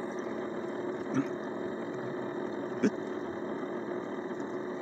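Steady hum of a magnetic stirrer hotplate running and stirring the reaction flask, with two brief knocks about one and three seconds in.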